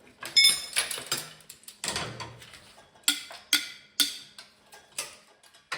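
Steel pry bar clanking against the tractor's metal: a series of about eight sharp, irregular metallic knocks, the first one ringing briefly.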